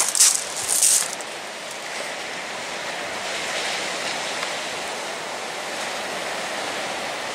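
Surf breaking and washing up a shingle beach, a steady rushing. Two short, loud rustling noises come in the first second.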